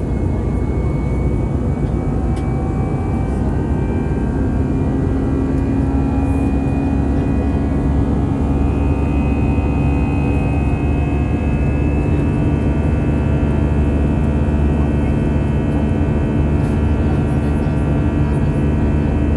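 Airbus A319's CFM56 jet engines heard from inside the cabin: a steady, loud drone with a few faint whining tones held above it.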